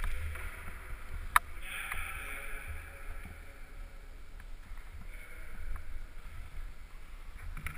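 A climber's hands and shoes knocking and scuffing on an indoor climbing wall, picked up by a helmet-mounted GoPro HD Hero. There are two sharp knocks, one at the start and one about a second and a half in, over a steady low rumble and rustling of the camera being carried.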